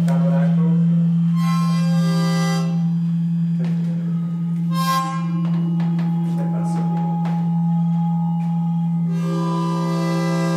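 Audio feedback drone from condenser microphones aimed at active loudspeakers: a steady low hum throughout, with bright reedy chords swelling in about a second and a half in, again around five seconds, and near the end.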